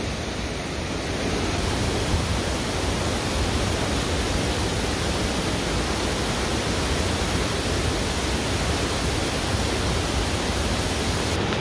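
Steady rush of river rapids: fast water pouring over rock.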